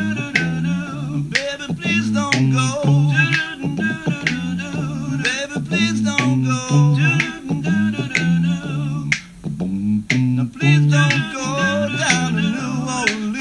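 A cappella vocal music: voices singing over a bass line of short repeated notes, with finger snaps keeping the beat.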